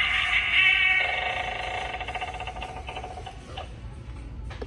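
Gemmy animated eyeball doorbell prop playing a fluttering, pitched sound effect through its small speaker. The effect steps down in pitch about a second in and fades away, then a couple of faint clicks come near the end.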